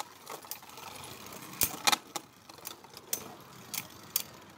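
Beyblade Burst top spinning in a plastic stadium: a steady whirr broken by several sharp plastic clacks of hits, the loudest two close together about two seconds in.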